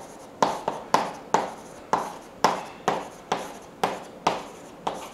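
Chalk tapping and scraping on a chalkboard in short, sharp strokes, about two a second, as a row of small arrows is drawn along a line.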